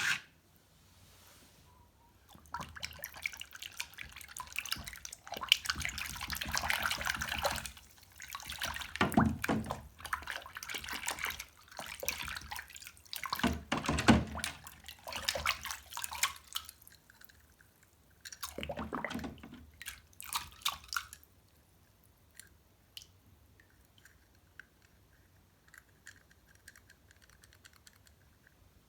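Water splashing and running in uneven bursts as small toy cars are washed, with a few heavier splashes; it stops about 21 seconds in, leaving only faint clicks.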